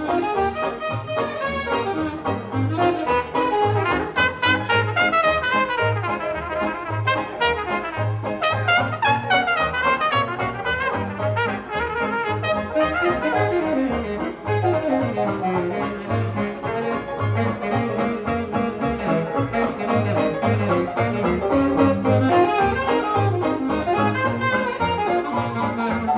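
A small traditional jazz band playing live: horn melody lines and runs over a steady bass beat.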